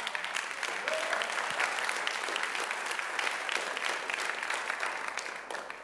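Church congregation applauding, a dense patter of many hands clapping that fades away near the end.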